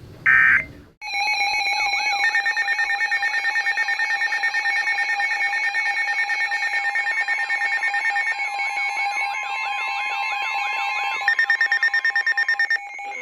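A short burst of digital alert data ends just after the start. Then, from about a second in, emergency alert receivers sound their alarms together: several overlapping beeping and warbling tones pulsing a few times a second, joined about halfway by a steady tone near 1 kHz. They cut off together near the end.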